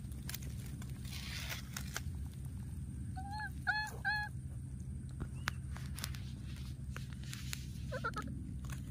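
Baby macaque calling: three short, high, arched cries a little over three seconds in, then a quick cluster of similar cries near the end, with light rustling clicks over a steady low hum.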